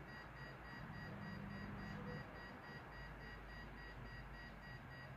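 Faint, evenly repeating high-pitched electronic beeping from an EMF detector, a sign that it is registering an electromagnetic field.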